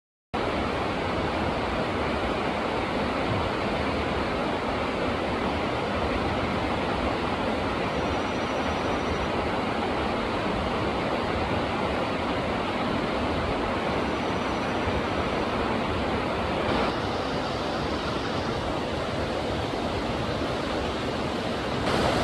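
Rushing river water: a steady, even rush with no distinct events, getting a little louder near the end.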